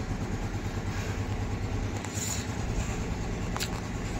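A steady low mechanical hum, an engine or motor running, with a couple of faint clicks.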